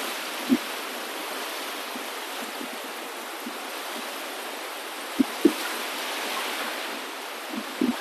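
Steady rushing of moving water, a wash of surf or a flowing stream, with a few brief low thuds about half a second in, twice a little after five seconds and twice near the end.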